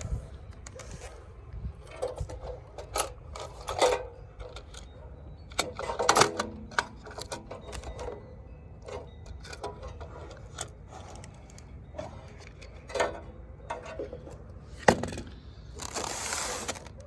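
Irregular knocks, metallic clinks and rustling as a Suburban RV water heater and its packing are handled, with a longer scraping rustle near the end.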